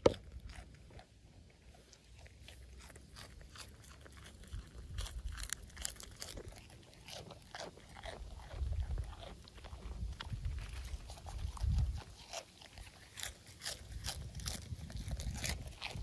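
A goat chewing and crunching leafy greens right at the microphone: a steady run of crisp crunches, with a few low thuds along the way.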